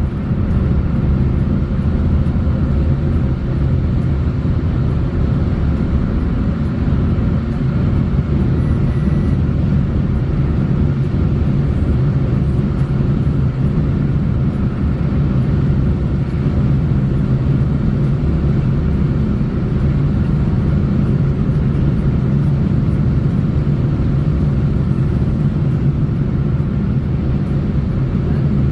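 A road vehicle driving at a steady speed: a constant low rumble of engine and tyre noise that holds even, with no change in speed.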